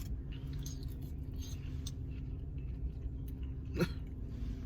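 Someone chewing food between sentences: soft, scattered mouth clicks, with a small gulp or hiccup-like sound about four seconds in, over a steady low hum.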